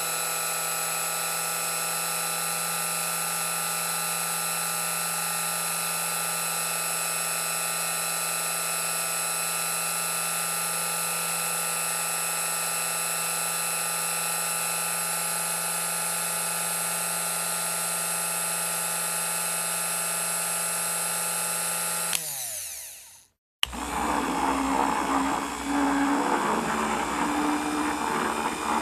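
Electric hand mixer running steadily at high speed with a high whine, then switched off about 22 seconds in, spinning down to a stop. After a short gap it starts again mixing in a bowl at low speed, a rougher, uneven sound with the beaters working through the bowl.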